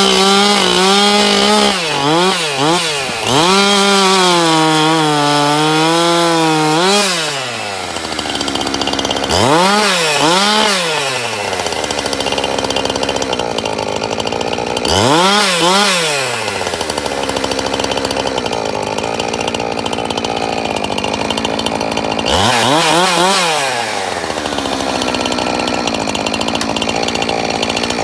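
Husqvarna 365 71cc two-stroke chainsaw engine on its first run on factory carburettor settings: held at high revs with the pitch wavering, then dropping to a steady idle and blipped up to high revs and back three times.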